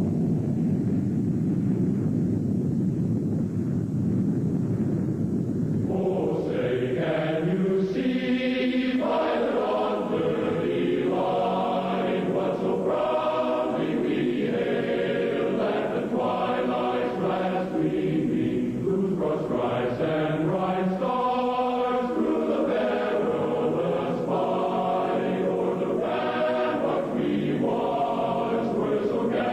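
A low rumbling noise, then from about six seconds in a choir singing held chords.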